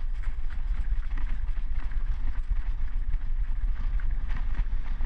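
Irregular footfalls of someone moving on foot, over a steady low rumble of wind on the microphone.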